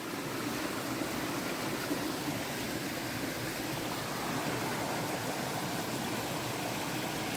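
A stream running over a long chain of small cascading falls, at low water: a steady rush of water.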